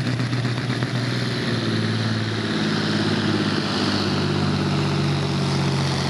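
Volvo F-series truck's diesel engine working under full load as it pulls a weight-transfer sled, a steady, loud engine note that becomes more distinct about a second and a half in.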